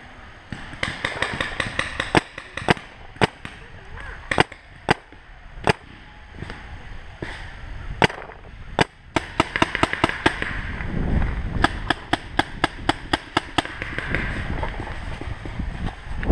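Paintball markers firing: spaced single shots, then quicker strings of several shots a second from about nine seconds in.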